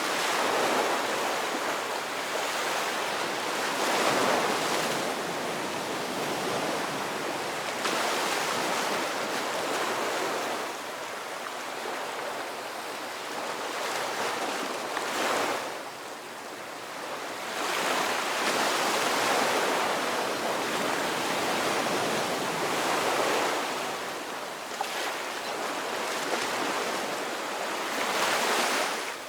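Ocean surf: waves breaking and washing in, swelling and easing every few seconds with a continuous rush of water between.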